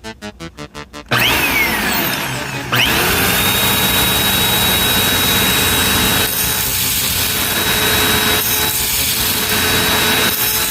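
A brief musical jingle, then a cyclone-type vacuum cleaner comes on with loud rushing air. Its motor pitch first falls, then jumps up about three seconds in and settles into a steady high whine.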